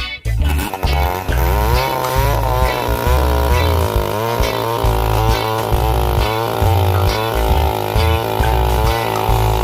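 Chainsaw engine running, its pitch rising and falling again and again as the throttle is worked.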